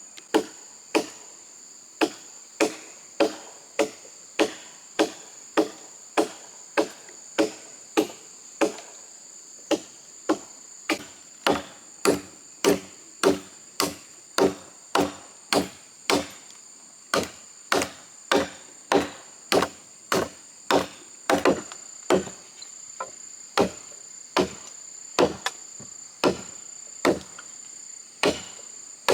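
Steady, repeated chopping into wood with a hand blade, about one and a half to two strokes a second, each a sharp knock. Insects drone steadily and high-pitched throughout.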